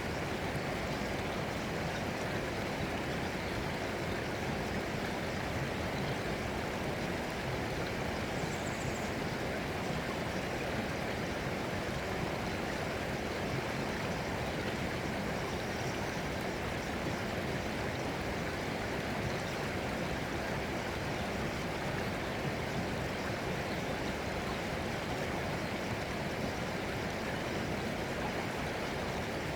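Running water flowing steadily, an even rush with no breaks or changes.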